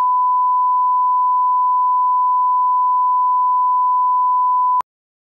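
A steady 1 kHz line-up test tone, the reference tone that accompanies broadcast colour bars. It cuts off abruptly with a click near the end.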